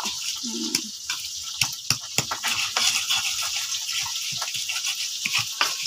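Pestle crushing and grinding raw chilies, tomato and shallots for sambal in a mortar: irregular knocks and scrapes with a wet squish.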